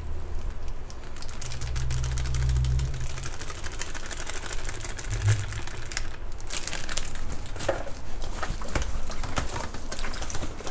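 Cornstarch being shaken from a crinkling packet onto marinated pork belly in a stainless steel bowl, followed from about halfway by hands kneading and squishing the coated pork against the bowl, a busy run of wet clicks and rustles.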